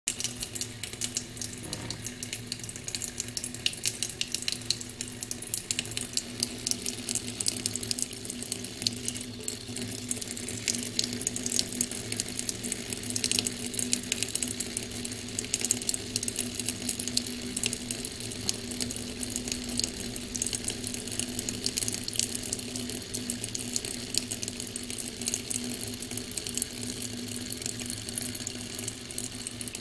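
A thin stream of water from a kitchen mixer tap running steadily into a stainless steel sink, splashing with many small irregular spatters.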